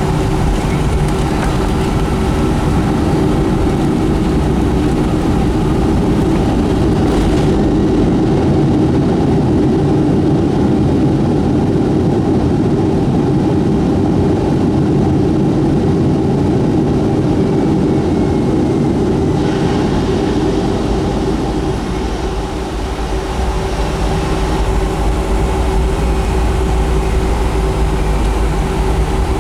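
Steady cabin noise inside a Boeing 757-200: the Pratt & Whitney PW2000 engines and rushing air make a constant hum and hiss.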